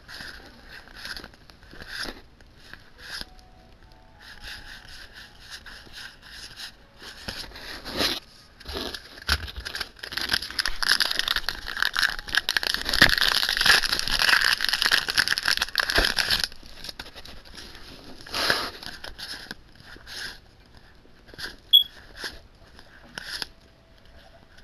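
Foil wrapper of a Pokémon TCG booster pack crinkling and tearing open, a dense rustle lasting about six seconds from about ten seconds in. Before and after it, soft ticks and slides of trading cards being flipped through by hand.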